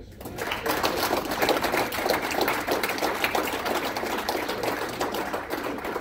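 Audience clapping: dense, irregular applause that swells within the first second and tapers off near the end.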